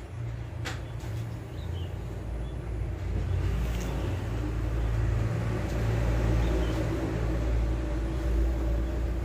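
An engine running steadily with a low hum, growing louder about three seconds in. A single sharp knock comes near the start.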